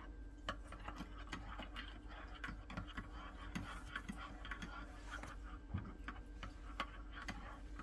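Soft, irregular clicks and taps of a mug and spoon being handled, a few a second, over a faint low hum.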